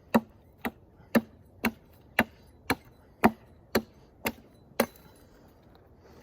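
Ten sharp, evenly spaced strikes, about two a second, from a hand tool hitting something hard, stopping a little before five seconds in.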